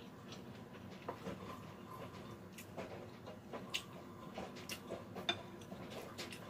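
Spoon clicking and scraping against porcelain bowls and a plate while eating, with soft chewing sounds; a few sharper clinks stand out about two and a half, four and five seconds in.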